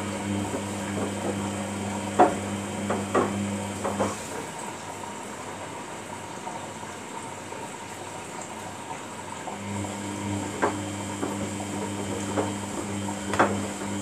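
Samsung front-loading washing machine tumbling its load in water during the rinse: the drum motor hums for about four seconds, stops, and starts turning again about halfway through, with water sloshing throughout. A few sharp knocks come as the wet load drops inside the drum.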